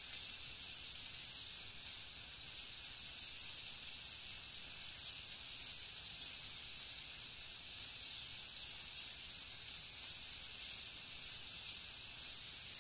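A steady, high-pitched insect chorus, with fainter higher chirps repeating roughly once a second.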